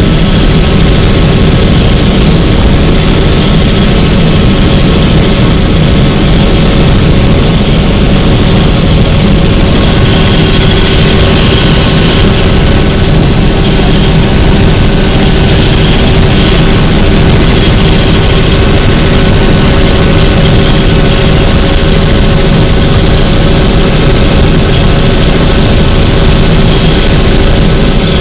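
Helicopter's turbine engine and rotor running steadily in flight: a loud constant drone with a steady high whine over it.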